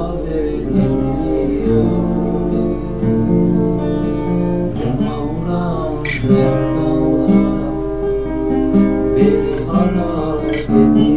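Acoustic guitar playing an instrumental passage, a run of plucked notes and chords that ring on.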